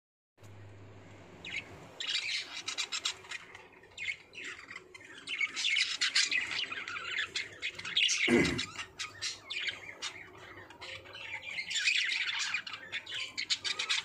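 A flock of budgerigars chattering: a dense, continuous stream of short high chirps, warbles and squawks that starts about two seconds in, with a single low thump near the middle.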